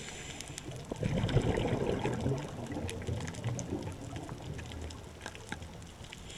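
Underwater sound of a scuba diver's exhaled bubbles, a gurgling rush that starts about a second in and fades away, with scattered faint clicks.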